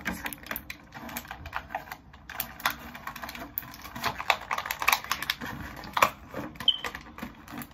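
Thin plastic packaging bag crinkling and rustling, with many irregular small clicks and taps as action-figure parts are handled inside it.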